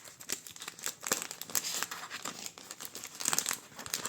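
Crinkly plastic gummy-candy bag being handled, with a quick, irregular crackling of the wrapper.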